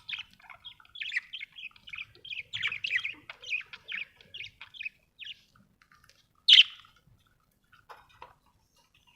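Budgerigars chattering in quick runs of short chirps for about five seconds, then one loud, sharp call and a few faint notes.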